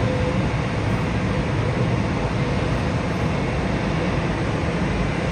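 Steady low rumble and hiss of airport noise heard through terminal window glass, with no distinct events.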